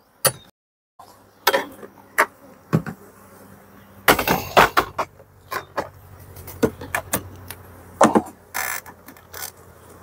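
Wooden beehive frames knocking and clicking against the hive box as they are lifted out and set in, a string of sharp knocks with the loudest about four seconds in, over a low steady hum.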